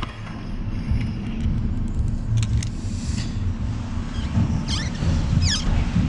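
Felt-tip marker squeaking on the painted metal top of an air dryer cartridge as a date is written on it: a few short, high squeaks falling in pitch in the second half. Under it runs a steady low rumble.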